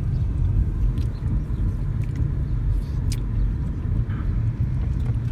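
Steady low road rumble inside a moving car's cabin, with a few faint light ticks.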